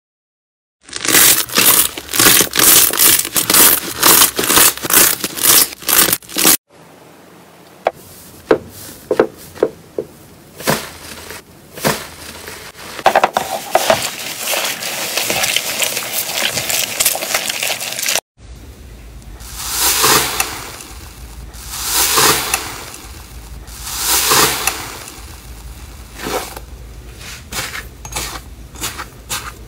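Slime being handled in three short clips: first a dense run of crackling and popping, then foam slime stretched and pulled apart with scattered clicks and tearing. Then a hand presses and squishes a crusted slime in a steel bowl, in slow swells about every two seconds.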